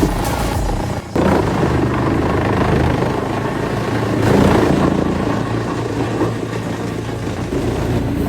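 Heavy machinery engine running under load, with a brief dip about a second in where the sound cuts.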